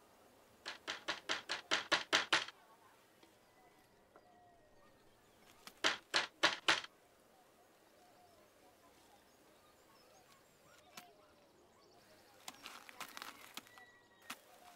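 Hand knocking on wooden louvered double doors. A quick run of about ten knocks, then a few seconds later a second run of about five. A fainter, looser series of taps comes near the end.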